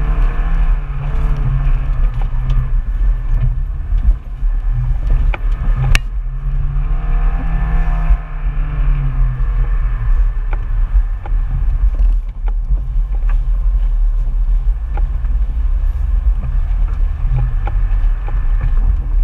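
Off-road 4x4's engine running under load, heard from on board, as it drives over rough ground; the engine note rises and falls a few times, most clearly about seven seconds in. Sharp knocks and rattles from the body and suspension come over bumps, the loudest about six seconds in.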